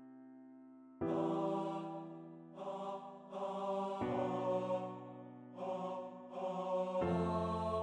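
Slow tenor-and-piano song playback: sustained piano chords struck about every three seconds, about a second in, at four seconds and near the end, with a sustained tenor vocal line entering in short phrases between them.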